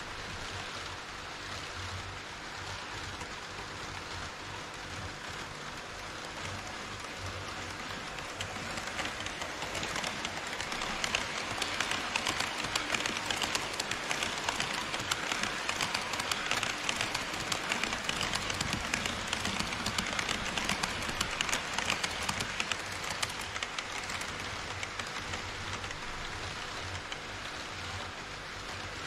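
HO-scale model train wheels rolling on KATO Unitrack, a steady fine clatter like light rain. It grows louder for about a dozen seconds in the middle as an E5 Shinkansen model passes close by, then fades back.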